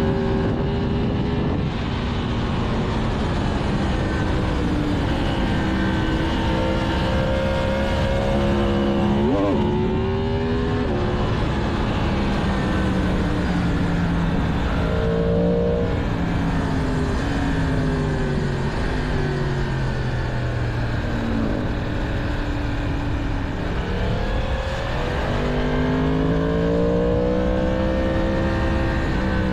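Yamaha MT-10's stock crossplane inline-four engine under way, its note repeatedly climbing with revs and dropping back at gear changes and off the throttle. There is a quick sharp rev blip just before ten seconds in.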